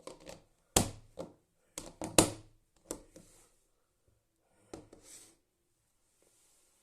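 Hands mixing a homemade tissue slime in its container: about five sharp knocks and clicks with light rubbing between them, spaced out over the first five seconds.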